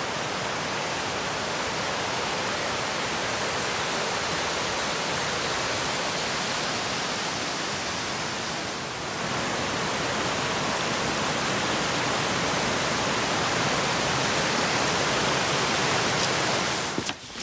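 Mountain creek rushing and cascading over rocks: a steady, even roar of water, with a brief dip about nine seconds in.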